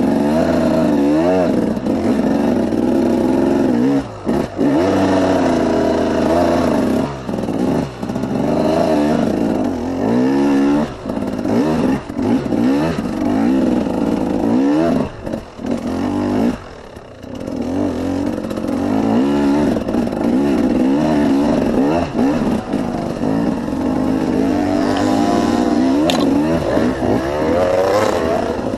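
KTM 300 two-stroke dirt bike engine revving up and down under load as the bike climbs a rutted dirt trail, its pitch rising and falling with the throttle and dropping off briefly several times where the throttle is shut, with a few sharp knocks near the end.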